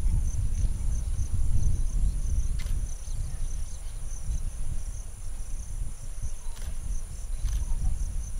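A steady chorus of insects: one fast-pulsing trill and a second, higher, unbroken whine, over a low rumble of wind noise. A few faint clicks sound about two and a half, six and a half and seven and a half seconds in.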